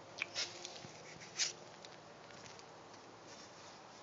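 Kittens scrabbling and pattering in a box: a few faint, brief scratches and taps in the first second and a half, then quiet room tone.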